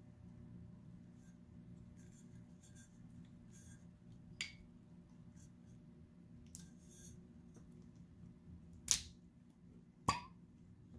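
A lever corkscrew pulling the cork from a wine bottle: faint scattered metal clicks and scraping, then two sharper clicks near the end, the loudest about nine seconds in, the second with a short squeak as the cork comes free.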